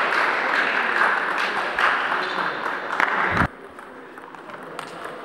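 Spectators applauding with dense clapping in a gym hall, which stops abruptly a little over three seconds in.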